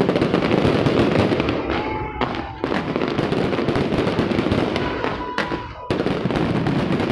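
Fireworks display going off in a dense, continuous barrage of bangs and crackling, with fresh volleys starting suddenly about two and a half seconds and six seconds in.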